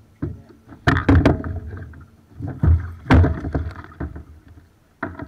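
Handling noise on a plastic kayak: several loud knocks, bumps and rattles in clusters, about a second in, near the three-second mark and again just before the end, as the angler shifts about and casts a baitcasting rod.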